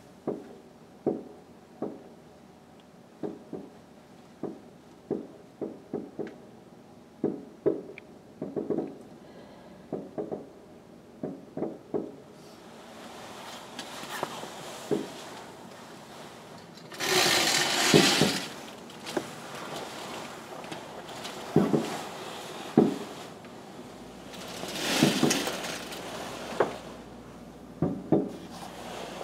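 Aerial fireworks shells bursting, a quick run of sharp bangs, one or two a second. About halfway a hissing crackle swells into a loud stretch of crackling, and more bangs and crackle follow near the end.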